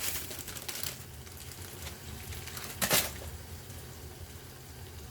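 Cooking noises at a pan: one sharp clink of a utensil against the pan about three seconds in, over a low steady hum and a few soft rustles near the start.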